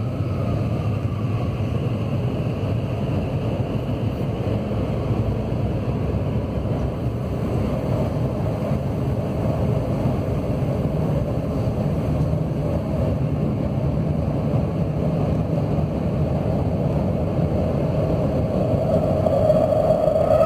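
Steel-wheeled CAF AS 2014 electric metro train running through a tunnel, heard from inside the front car: a steady rumble of wheels on rail. A whine grows louder near the end.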